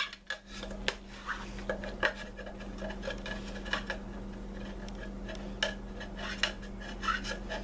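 A spoon scraping and clinking irregularly against the sides of a ceramic crock pot insert as leftover soap paste is scraped down into the water, with a steady low hum underneath.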